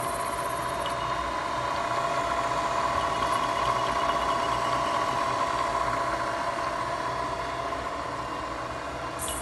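Bridgeport CNC milling machine running with a steady mechanical whine over a low hum.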